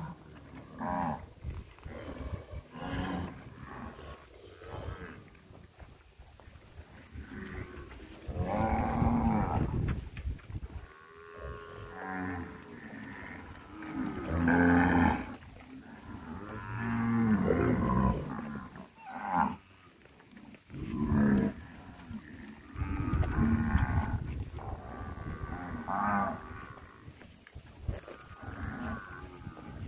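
A herd of zebu cattle mooing, many animals calling over one another in long, loud moos, one after another with only short gaps.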